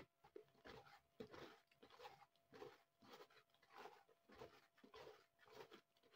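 Faint squelching and scraping of a silicone spatula stirring a thick paste of sodium lauryl sulphate and sodium sulphate in a plastic bucket. The short strokes come irregularly, about two a second.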